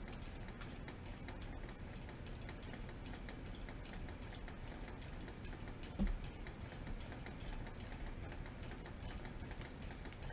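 Faint handling noise of a bundle of cross-stitch embroidery floss being turned and moved on a tabletop, with light clicks throughout and a soft bump about six seconds in.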